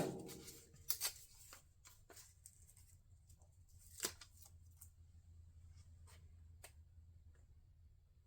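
Insulating tape being handled and pressed on: scattered light clicks and rustles, the clearest about four seconds in.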